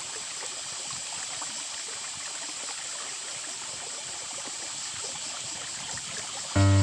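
Shallow river water running over a riffle: a steady babble of flowing water. A music cue starts right at the end.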